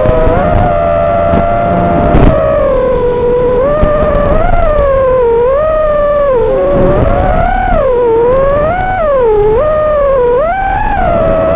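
FPV racing quadcopter's motors whining, the pitch rising and falling every second or so as the throttle changes.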